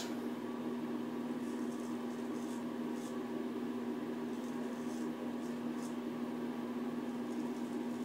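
Straight razor scraping through lather and stubble on the neck in short, faint, high-pitched strokes, in small clusters, over a steady low hum.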